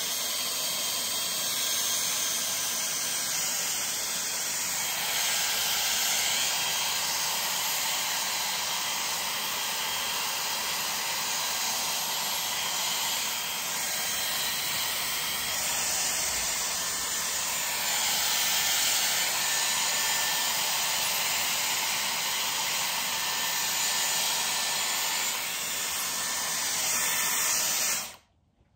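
Dyson Airwrap hair styler blowing air through a brush attachment: a steady rushing hiss that swells a little now and then as it is worked through the hair, then switched off abruptly near the end.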